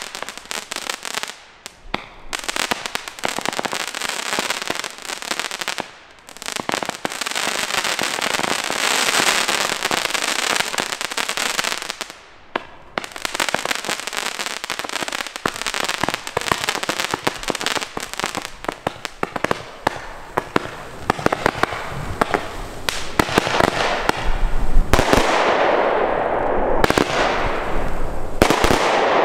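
Consumer firework batteries firing: a dense, rapid string of shots and crackles as comets rise and burst, broken by brief lulls about 2, 6 and 12 seconds in. Near the end come several louder single bangs, each trailing off.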